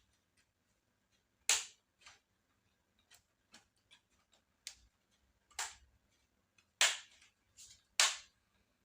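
Sharp plastic clicks and snaps, four loud ones and several fainter ones at irregular intervals, from the clips of a laptop's plastic case being pried open.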